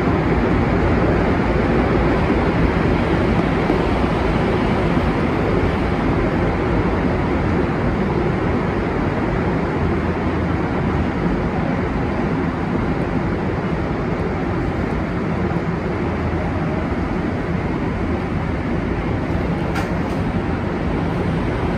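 A rubber-tyred Montreal Metro train running through a tunnel, heard from inside the car: a steady rumble and hiss that grows slightly quieter toward the end.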